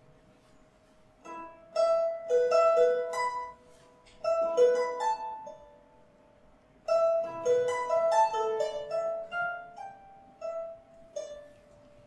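Recorded harp music: plucked notes ringing on, played in two flowing phrases with a short pause between them.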